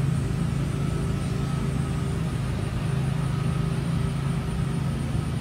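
A steady low hum of background noise, unchanging throughout, with a faint high thin tone above it.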